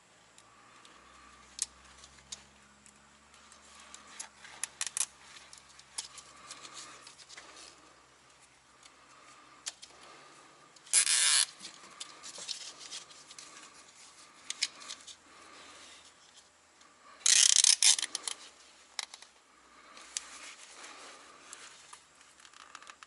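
Nylon zip tie being pulled tight through its ratchet lock, two short rasping zips, among small clicks and rubbing from handling wiring.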